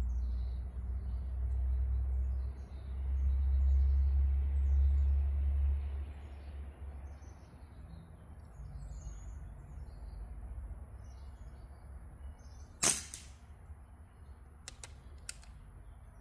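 A single airgun shot about two-thirds of the way in, sharp and the loudest sound, followed about two seconds later by two faint clicks. A low rumble fills the first few seconds.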